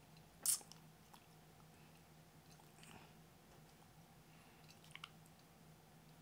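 Small clicks and mouth sounds as a pre-made metal grill is pressed onto the front teeth by hand: one sharp click about half a second in, then fainter clicks, including a quick double click near five seconds.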